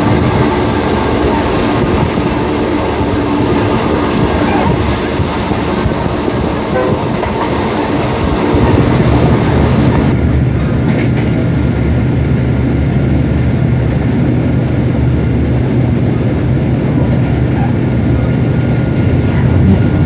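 Diesel-hauled passenger train running along the track, heard from on board as a loud, steady rumble of wheels and running gear. About halfway through, the higher part of the noise drops away and the sound turns duller.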